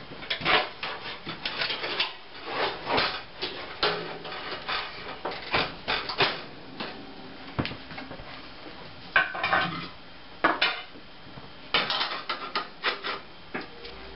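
Sheet-metal parts of an electric range being handled: irregular scraping and rattling of metal on metal, including a drip pan being set into its burner opening.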